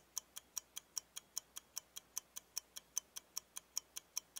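Faint ticking-clock sound effect: fast, even high-pitched ticks about five a second, a countdown cue for thinking time.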